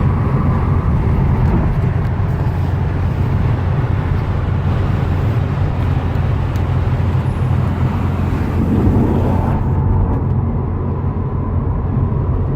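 Steady road and wind noise inside a 2018 Subaru WRX STI's cabin at highway speed: a low tyre rumble from the Yokohama Advan tyres under the rush of wind. The higher hiss dulls suddenly about ten seconds in.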